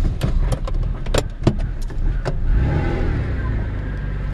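1987 Acura Legend's 2.5-litre V6 idling with a steady low rumble. Several sharp clicks and knocks come in the first couple of seconds, then about halfway in the engine note shifts and settles into a steady hum.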